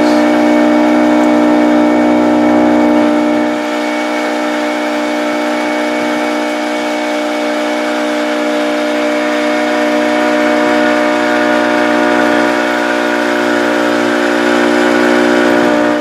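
Boat engine running at a steady speed: a loud, even drone with many overtones. It eases slightly about three seconds in.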